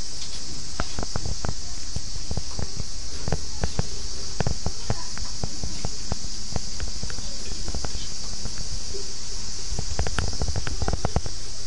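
Holstein calves moving in wooden pens, making irregular clicks and knocks of hooves and bodies against wood, with a cluster of knocks near the end. A steady high hiss runs underneath.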